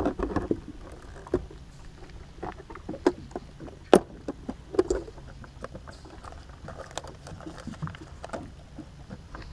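Scattered clicks, knocks and plastic rattles of tackle being handled: a storage-locker lid on a boat deck and a hard plastic waterproof tackle box set down and its latches opened. The sharpest click comes about four seconds in.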